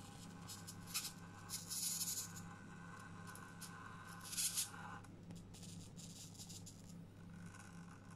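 FTX Utah RC crawler's electric motor and geared drivetrain whining faintly at very low throttle as it creeps down a foam ramp, the whine stopping about five seconds in. A few brief scuffs from the tyres come over it, the loudest near two seconds and four and a half seconds in.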